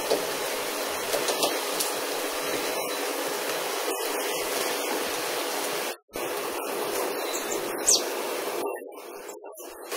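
Heavy rain falling, a steady even hiss. It cuts out for a moment about six seconds in and drops quieter for about a second near the end.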